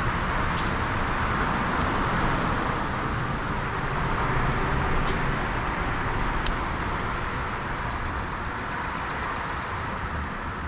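Steady rushing background noise with a low rumble, broken by a few faint, sharp clicks.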